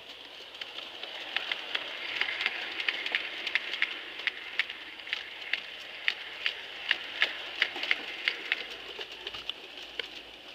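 Garden-scale model freight train rolling past, its wheels clicking over rail joints at a few clicks a second over a steady rolling hiss. The sound swells about a second in and fades out near the end.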